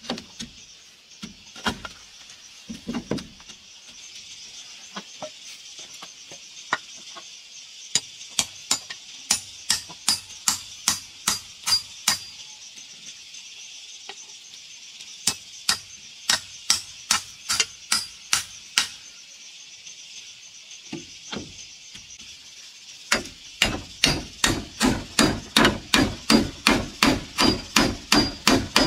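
Hammer driving nails into rough-sawn wooden planks, in runs of even strikes about three a second, with a faster, heavier run near the end. Insects drone steadily underneath.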